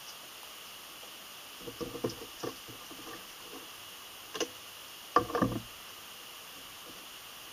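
Small knocks and clicks of a bottle of leather oil dye being handled on a workbench, its cap unscrewed and set down; the loudest rattle of knocks comes a little after five seconds in.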